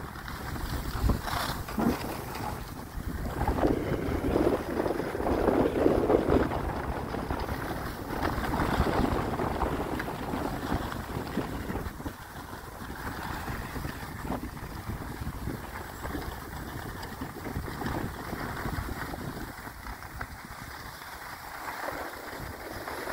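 Wind buffeting the microphone in uneven gusts, louder in the first half and easing off later.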